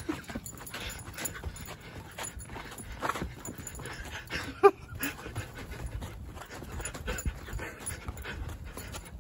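Border Collie–Kelpie puppy panting as it chases, over scuffing footsteps on dry ground, with one short whine about halfway through.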